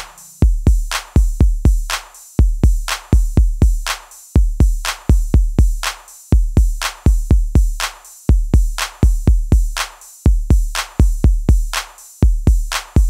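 Background music stripped to a drum-machine beat: deep kick-drum hits, each topped by a sharp click, in quick groups of about four that repeat roughly every two seconds.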